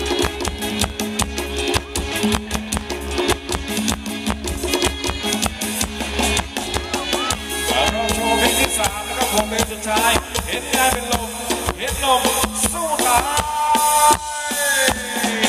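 Live band playing upbeat Thai ramwong dance music: a fast, steady beat on drum kit and shaker-type percussion under a bass line, with trumpet and saxophone on stage. A wavering lead melody comes to the fore about halfway through.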